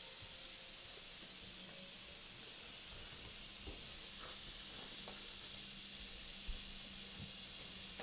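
Water running steadily from a kitchen tap into a sink during dishwashing, with a few faint knocks of dishes.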